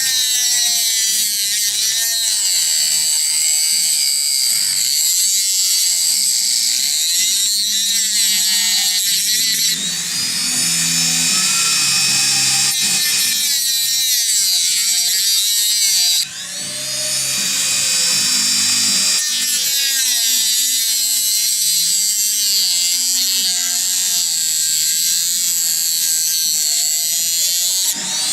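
High-speed power tool whining steadily. It eases off briefly about 10 and 16 seconds in, and its pitch slides back up each time as it spins up again.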